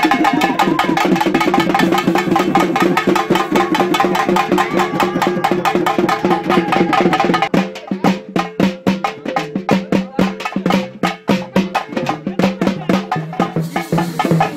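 Procession drums beaten fast and hard in a dense rhythm of sharp strokes. A steady held tone runs over the drumming for the first half. About halfway the tone drops out and the drumming becomes more broken, with separate, uneven strokes.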